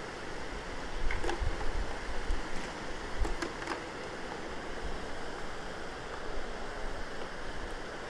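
Steady rush of river water around the legs of people wading, with a few light clicks and small splashes about a second in and again around three seconds in, as fish are shaken out of a nylon cast net into a plastic bucket.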